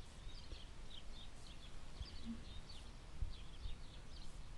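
Small birds chirping faintly in quick, short calls, several a second, over a low background rumble.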